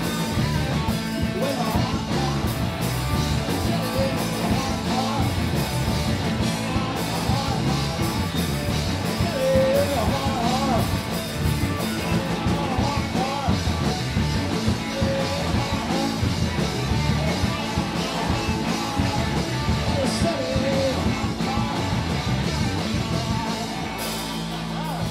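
Live rock band playing loud, with electric guitar, bass and drum kit going at full tilt and a melodic line weaving over them. Near the end the drums stop and a held chord rings on.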